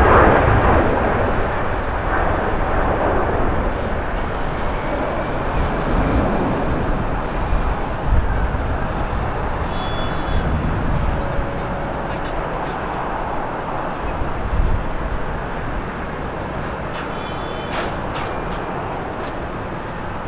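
Twin jet engines of a Boeing 777 airliner at takeoff thrust, a steady broad roar that is loudest right at the start as the jet lifts off and slowly fades as it climbs away.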